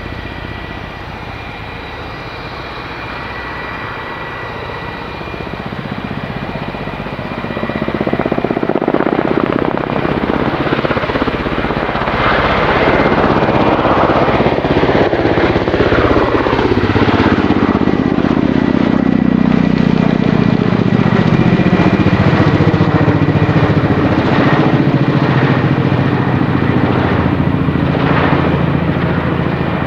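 Kamov Ka-52 attack helicopter's coaxial rotors and turboshaft engines: a steady high turbine whine while it hovers, then growing much louder from about 7 s in as it departs, with a rhythmic rotor beat and a pitch that falls and later rises as it passes and turns.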